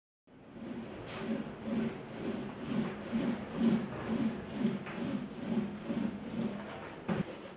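Small paint roller rolled back and forth over bare MDF, a rhythmic rubbing swish about twice a second as a coat of one-step primer goes on. A single knock near the end.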